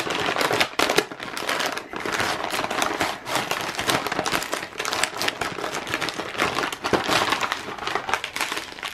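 Plastic packaging bag crinkling and rustling as it is handled and opened and a wiring harness is pulled out, full of quick crackles and clicks.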